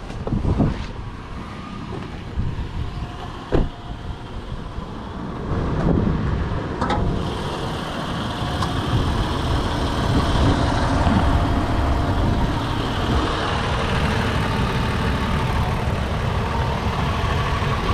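Toyota 4Runner's 4.0-litre V6 idling steadily, heard close up through the open hood from about seven seconds in. Before that, a few sharp knocks and clicks.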